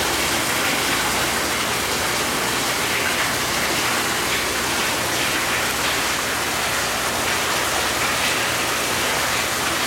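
Steady hiss of running water that stays at an even level throughout.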